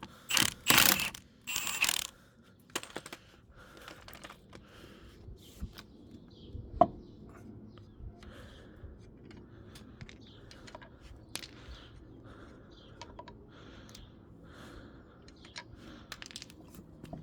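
Hand tools on a car's wheel hub: a few loud rasping bursts of a ratchet in the first two seconds, then scattered metallic clicks and knocks as sockets and parts are handled, one knock louder about seven seconds in.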